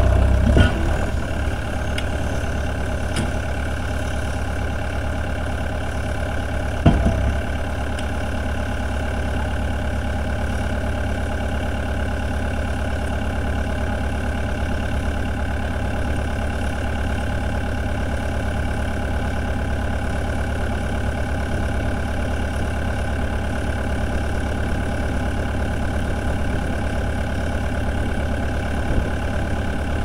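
A vehicle engine running steadily, with a deep, even hum. There is one sharp knock about seven seconds in.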